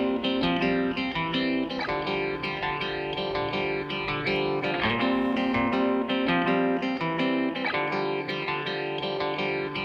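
Background music: a guitar picking a melody of quick plucked notes, with some effects on the tone.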